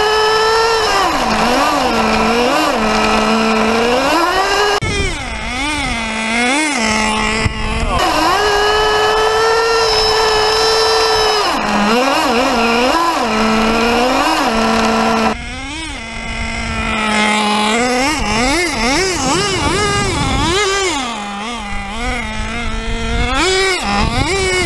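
Thunder Tiger TS4n 1/10-scale nitro touring car's glow engine revving up and down again and again as the throttle is worked, settling to a steady idle for a few seconds around the middle.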